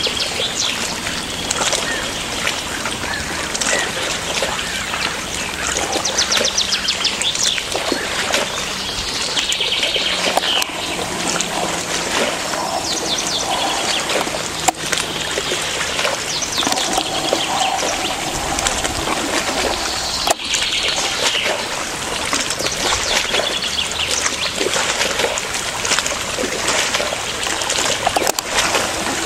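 Small birds chirping and whistling continuously from waterside trees, over a light trickle and splash of shallow water. Two sharp clicks in the middle stretch.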